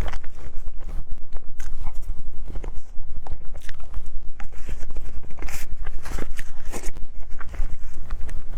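Close-miked eating sounds: biting into and chewing a fruit dessert, with irregular soft crunches and wet clicks.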